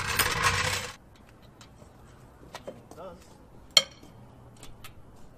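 Metal sockets and tools clinking in a plastic socket-set case as it is opened and handled: scattered light clicks and one sharp, ringing metallic clink just under four seconds in. Louder handling noise fills the first second.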